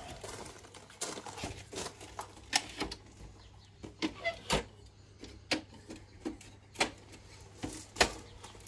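Scattered light clicks and knocks from handling a wall-mounted wooden pop-out table hung on chains and a folding table being lifted out of it, irregular and a second or so apart.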